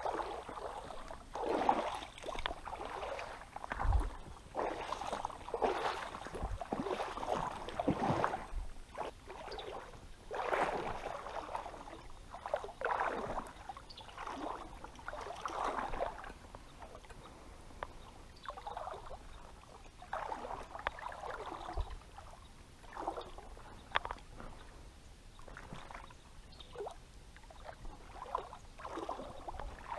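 Legs wading through shallow river water, making irregular swishing splashes every second or two, with a few dull low thumps.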